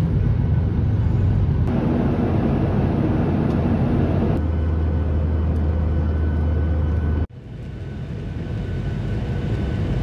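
Jet airliner cabin noise, a Skymark Boeing 737-800's engines and airflow heard from inside, in several spliced clips. It is loud at first, with a steady low drone from about four seconds in. After a sudden drop about seven seconds in, a quieter rush slowly builds.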